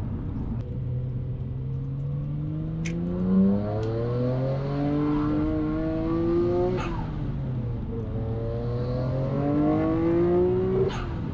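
Twin-turbo RB26DETT straight-six of a 400 kW Nissan Skyline R33 GT-R, breathing through a full HKS titanium straight-pipe exhaust, heard from inside the cabin accelerating hard. The engine note climbs steadily through three pulls and falls back at each gear change, about three and a half, seven and eleven seconds in, with a short sharp sound at each change.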